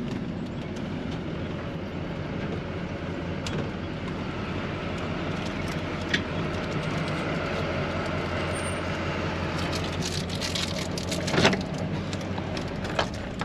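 Kodiak truck's engine running steadily as the truck drives along, with a few sharp clicks and knocks about eleven seconds in and again near the end.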